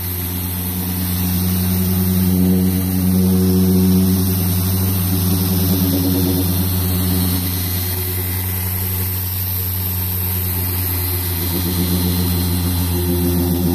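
Chicago Electric dual-action polisher running with a foam pad on car paint during machine polishing. Its motor gives a steady hum that swells and eases slightly as the pad is worked across the panel.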